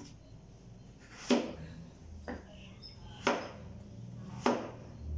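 Meat cleaver chopping down onto a cutting board: three hard chops about a second apart, with a lighter chop between the first two.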